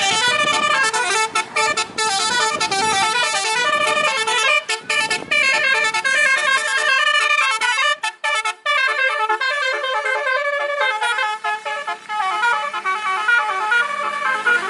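Telolet horn, a set of electric horn trumpets on a vehicle, playing a fast tune of quickly changing notes, several sounding at once, with a few short breaks.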